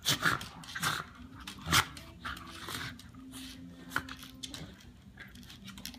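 Two corgis play-wrestling: a string of short, breathy huffs and mouthing noises, the loudest a little under two seconds in, with a low held growl around the middle.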